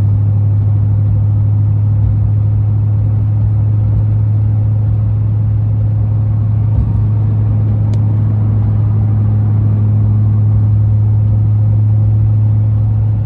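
Duramax diesel pickup driving at a steady cruise, heard from inside the cab: a constant low drone of engine and road noise that does not change in pitch.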